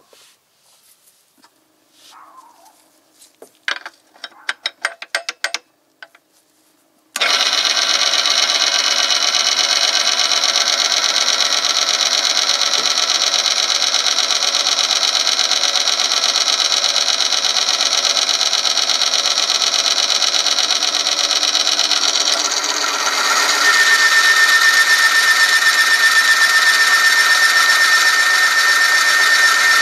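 Oil film strength test machine: a few light clicks and knocks as the lever and sample are set up, then about seven seconds in the electric motor switches on and the spinning steel roller rubs against the test sample in heated oil, a loud, steady metal-on-metal running noise. About two thirds of the way in it grows louder and a steady high squeal joins in as more weights on the lever arm press the sample harder onto the roller.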